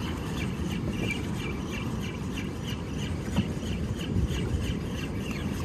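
Steady low rush of wind and choppy water around a small boat, with short high chirps repeating about three times a second.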